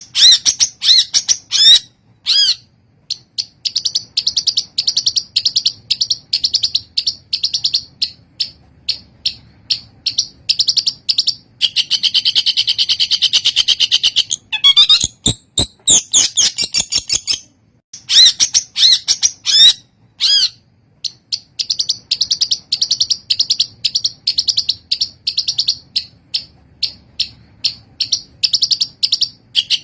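Long-tailed shrike singing loud, rapid runs of repeated sharp notes, several a second. Between the runs come a few rising whistled sweeps and stretches of very fast trill.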